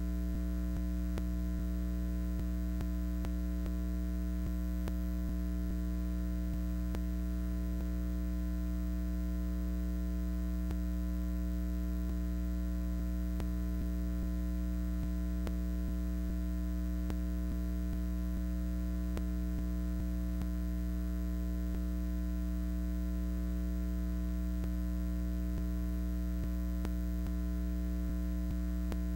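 Steady electrical mains hum: a low, unchanging buzz with several higher overtones.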